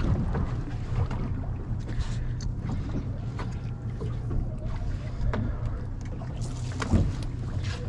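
Steady low rumble of a fishing boat sitting on open water, with a few small clicks and one louder knock near the end.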